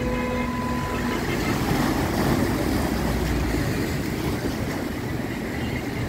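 Road traffic on the seafront road mixed with the wash of storm waves breaking on a concrete breakwater. A car horn sounds into the first second, then the noise continues steadily.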